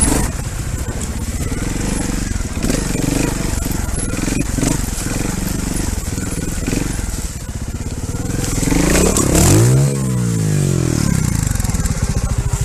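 Trial motorcycle engine running at low revs while the bike rolls over loose rocks, tyres crunching on stones. About nine seconds in the engine revs up once and falls back.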